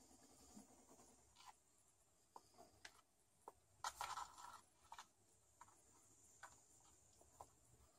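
Near silence: quiet room tone with faint scattered small clicks and rustles, a slightly louder cluster about halfway through.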